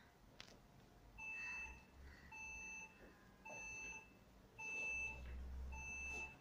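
Five short electronic beeps, evenly spaced at about one a second, each a steady pitched tone about half a second long. A faint plastic clack comes near the start.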